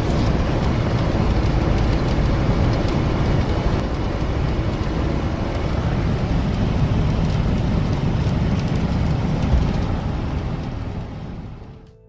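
Steady low rumbling noise with a hiss above it, fading out about a second before the end.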